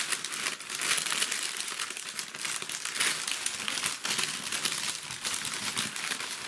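Brown kraft packing paper being pulled open and crumpled by hand: a continuous, dense crinkling and rustling.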